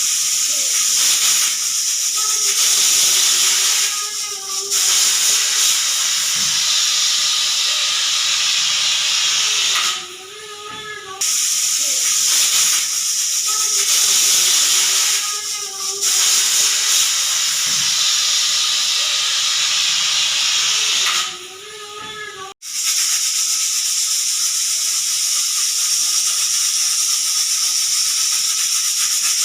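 Pressure cooker whistle: steam jetting out under the weight with a loud, steady hiss. The hiss dips about every five to six seconds, with a low wavering tone around each dip. Near the end it cuts off sharply and resumes as a continuous hiss.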